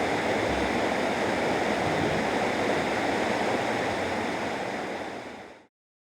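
Steady rushing of a waterfall in a river gorge, fading out about five seconds in to silence.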